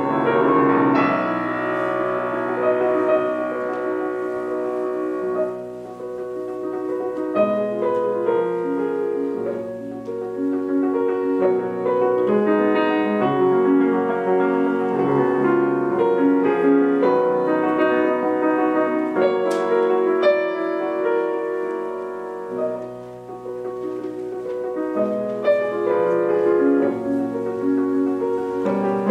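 Solo piano playing a classical piece in live performance, with a flowing stream of notes throughout.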